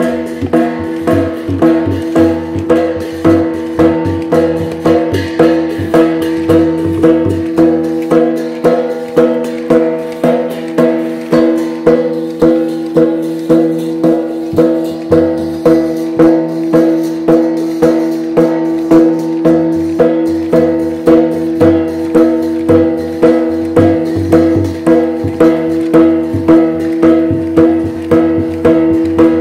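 Shan (Tai Yai) traditional dance music: a steady percussion beat of about one and a half strikes a second over a held ringing tone. The deep drum drops out for a few seconds twice.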